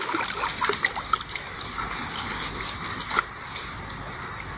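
Water splashing and sloshing around a keepnet full of barbel being worked at the surface of a river as the fish are taken out one by one. There is a flurry of short splashes in the first second or so and one sharp splash about three seconds in, over the steady rush of the water.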